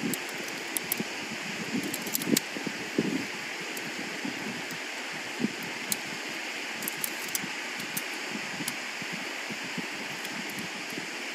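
Steady rushing of a stream flowing over rocks, with scattered light clicks and a few soft knocks over it.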